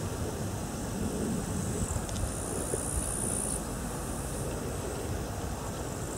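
Wind rumbling unevenly on the microphone outdoors, with a high, thin insect buzz that comes in about two seconds in and stops a second and a half later.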